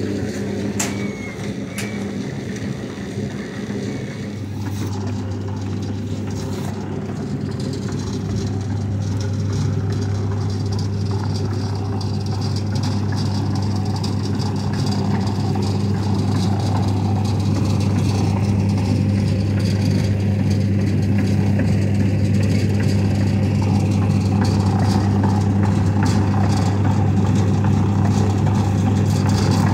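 An engine running steadily, a low even hum that grows slowly louder.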